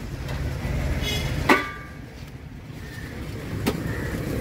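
A sharp metallic clang, a utensil striking a metal cooking vessel, rings briefly about a second and a half in, and a lighter knock follows near the end. Under both runs the steady low rumble of street traffic.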